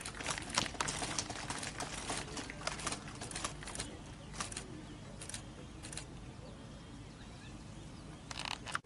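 Irregular sharp clicks and taps, thick in the first six seconds and sparse after, with a short cluster near the end, over a low steady background rumble.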